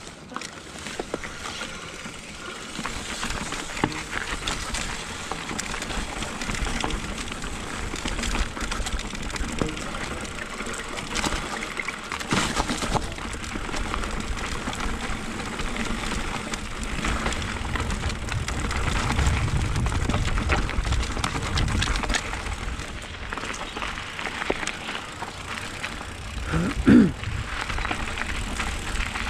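Mountain bike riding on a dirt trail, heard from a camera on the bike or rider: tyre noise on dirt and gravel, constant rattling and clicking from the bike, and wind rumble on the microphone, loudest in the second half. Near the end a brief pitched squeal rises and falls.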